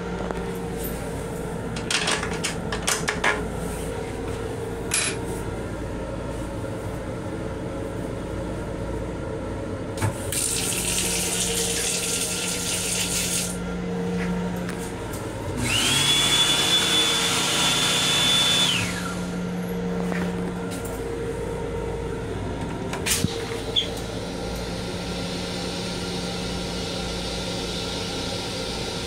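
M7 railcar toilet flushing: a hiss of rinse water for about three seconds, then a louder machine whine that rises, holds steady for about three seconds and winds down. A steady hum runs underneath, with a few sharp clicks before and after.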